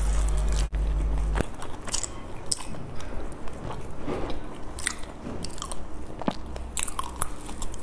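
Close-up eating sounds: biting into and chewing a soft green qingtuan rice cake filled with salted egg yolk and pork floss, with many short mouth clicks and smacks. A low steady hum stops about a second and a half in.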